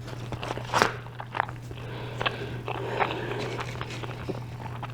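Close-miked chewing and biting of a gyro wrap, with scattered wet mouth clicks and smacks, over a steady low hum.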